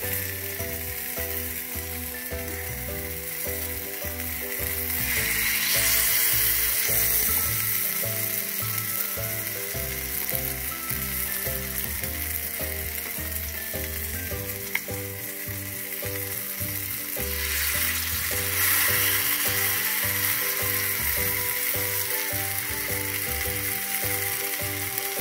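Masala-marinated king fish steaks sizzling as they shallow-fry in oil on a cast-iron tawa. The sizzle swells louder twice, about five and eighteen seconds in, as fresh pieces go onto the hot pan.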